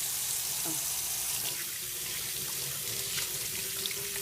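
Tap water running steadily from a faucet into a sink while hands are washed under it, with small splashes.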